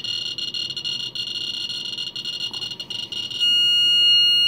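Ludlum 177 Geiger counter's speaker crackling with a rapid stream of detection clicks from a depression glass sample on its pancake probe, at about 2,000 counts a minute. About three and a half seconds in, its rate alarm trips and sounds a loud, steady, high-pitched tone, because the count rate is now above the lowered alarm setpoint.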